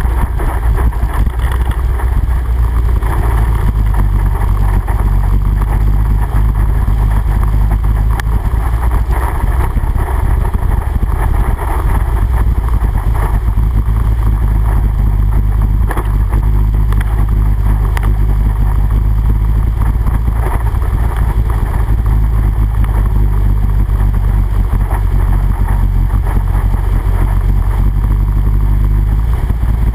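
All-terrain vehicle (ATV) engine running steadily while the quad drives through standing water, with water splashing around the tires.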